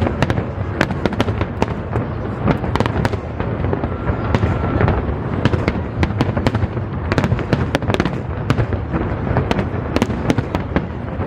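Aerial fireworks going off in a dense, continuous barrage: a constant low rumble of booms with many sharp crackles and cracks, several a second.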